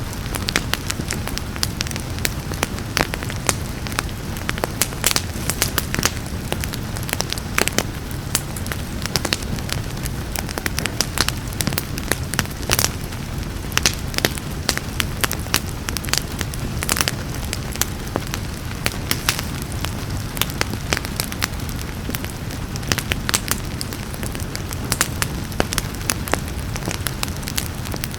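Wood fire crackling with frequent irregular sharp pops over a steady low rumble, mixed with a soft hiss of steady rain.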